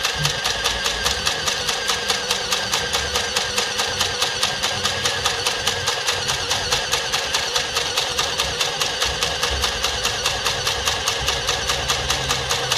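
Mini electric sewing machine running steadily, its small motor and needle mechanism chattering in an even rhythm of about three to four beats a second as cloth is fed through. The machine is failing to form stitches.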